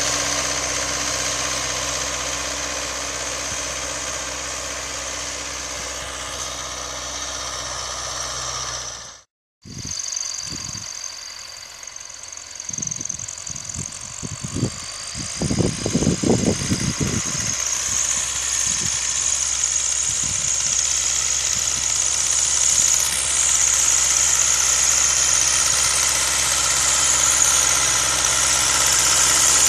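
MTZ-82 tractor's four-cylinder diesel engine running steadily under load as it pulls a harrow cultivator. The sound cuts out abruptly about nine seconds in; after that the engine is distant, a few low thumps come in the middle, and the engine grows steadily louder as the tractor comes back toward the microphone.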